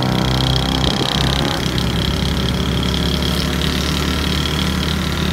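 A motor vehicle engine running steadily, its even hum dying away about one and a half seconds in, over a steady loud rushing noise with a deep rumble.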